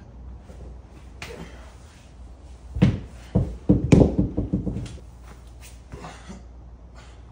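Pair of hex dumbbells set down on a concrete floor: a string of heavy thuds and knocks over about two seconds, with smaller clunks trailing off as the weights settle.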